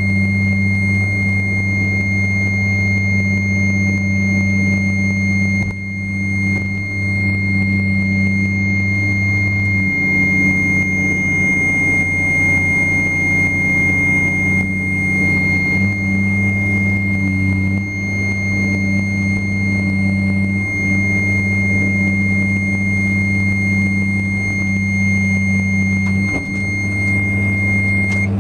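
Cat 345D excavator's diesel engine running steadily, heard from the cab, its note dipping briefly several times as the hydraulics take load. A steady high-pitched warning buzzer sounds over it and cuts off just before the end.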